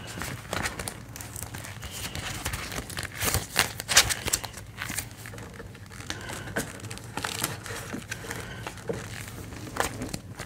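Clear plastic zip pockets of a ring-binder cash wallet crinkling and rustling as they are handled and the pages turned, with irregular sharp clicks, the loudest about four seconds in.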